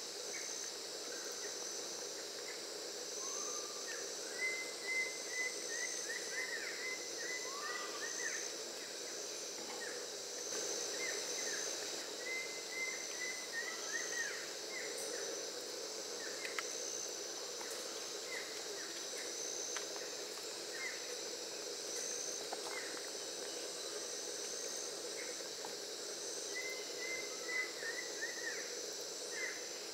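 Tropical rainforest ambience: a steady high insect drone pulsing in short beats, with small birds calling in quick runs of short chirps about four seconds in, around twelve seconds and again near the end.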